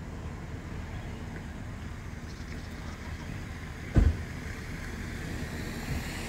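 Steady low wind rumble on the microphone ahead of an approaching thunderstorm, with one short, sharp low thump about four seconds in.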